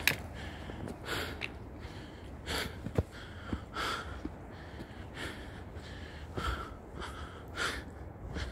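A hiker's hard breathing while climbing a steep rocky trail, one breath about every second and a quarter, with a sharp knock about three seconds in.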